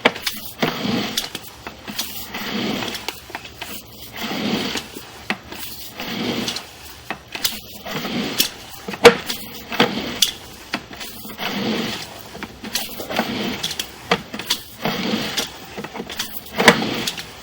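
Sewer inspection camera's push cable being fed by hand into the drain line: repeated rubbing and scraping strokes about every one and a half to two seconds, with sharp clicks and knocks between them.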